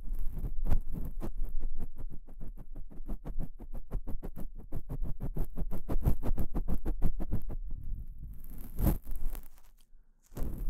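Ear pick scraping inside a KU100 binaural dummy head's ear in rapid, evenly spaced short strokes, several a second. After about seven seconds it slows to a few scattered scrapes, one of them louder.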